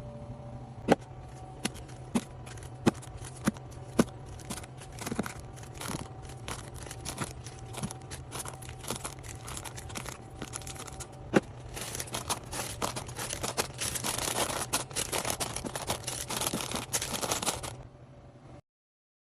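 Items being handled during a fridge restock: a series of sharp taps and clicks as things are set down, then several seconds of dense crinkling and tearing of packaging that stops abruptly near the end.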